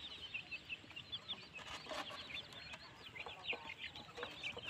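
A flock of young chicks peeping continuously, many short high chirps overlapping, with a few soft taps.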